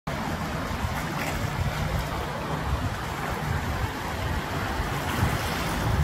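Small waves lapping at a sandy, rocky shoreline, with wind buffeting the microphone in a steady low rumble.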